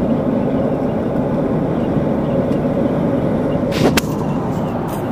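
Steady engine and road noise inside a Land Rover LR3's cabin while it drives along, with a sharp click about four seconds in.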